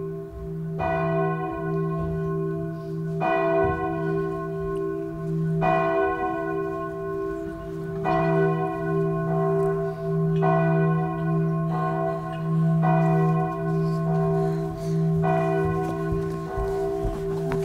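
A church bell tolling slowly, one stroke about every two and a half seconds, seven strokes in all, each ringing on over a steady low hum.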